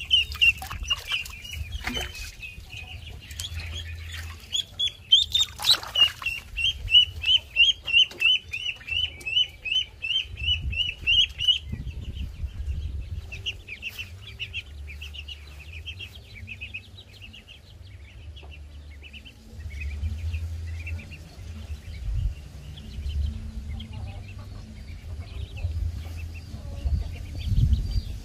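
Ducklings peeping: a fast run of high calls, about four a second, loud for roughly the first eleven seconds and fainter after that.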